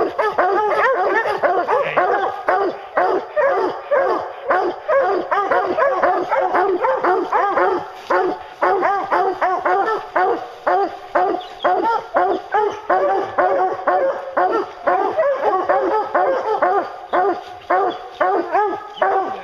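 A pack of hunting hounds barking and bawling nonstop at the foot of a tree, many voices overlapping several times a second. This is the tree bark of hounds that have a black bear treed above them.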